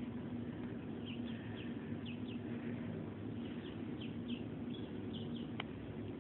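Mallard duckling peeping: about a dozen short, high, downward-sliding peeps in small bunches, over a steady low hum.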